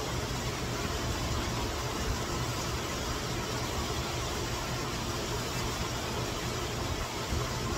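Steady hiss of heavy rain together with the rush of a swollen, flooding stream.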